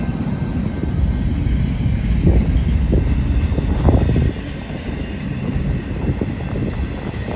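Double-stack container freight train rolling past: a steady rumble of steel wheels on the rails, with a few knocks, quieter from about four seconds in.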